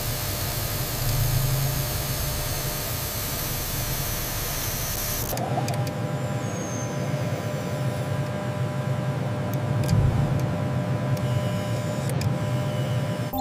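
Steady machine hum under a loud hiss. About five seconds in, the hiss cuts off suddenly, leaving a lower hum with faint steady tones and a few light clicks.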